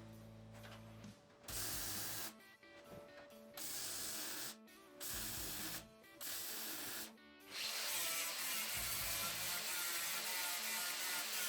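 Welder laying a bracket on in four short runs of steady hiss, each about a second long, then a longer unbroken run from about two-thirds of the way in. Background music plays underneath.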